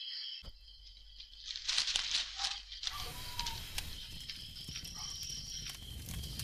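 Night insects chirring steadily in high tones, joined about a second and a half in by crackling and rustling noises that grow denser from about three seconds.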